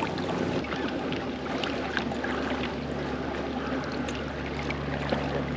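Water swishing and trickling around a pedal-drive fishing kayak under way while trolling, with scattered small clicks and a steady low hum that comes in about a second in.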